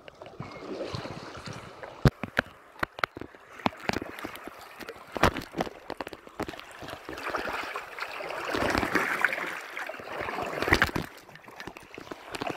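River water rushing around a Sevylor Wabash inflatable kayak paddled through rapids, with paddle splashes and many sharp knocks. The rush of water swells for a few seconds past the middle.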